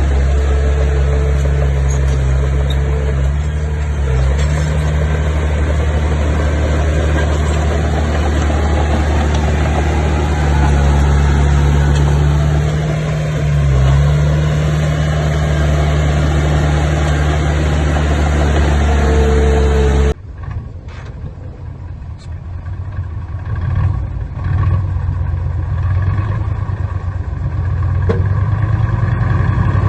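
Bulldozer's diesel engine running steadily under load, with a brief dip around two-thirds of the way through its first part. About two-thirds of the way in the sound cuts abruptly to a quieter engine with scattered knocks and clanks.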